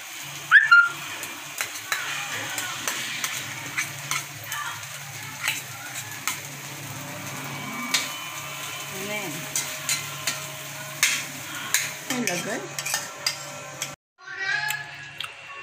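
Diced tofu sizzling as it fries in a wok, stirred with a spatula that clicks and scrapes against the pan many times. About a second before the end the frying cuts off and music starts.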